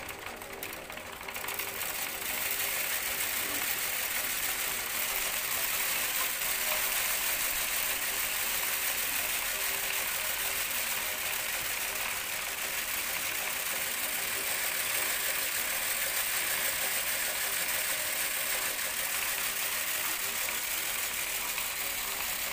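Homemade wheat cleaning machine running: a steady mechanical hum under a dense hiss of wheat grains rattling across the perforated metal sieve and down the chutes. The grain hiss swells about a second and a half in, then holds steady.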